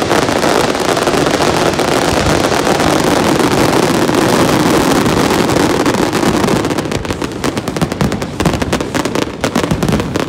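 Aerial fireworks crackling overhead: a dense, continuous crackle from many crackling stars, breaking up about seven seconds in into rapid separate pops.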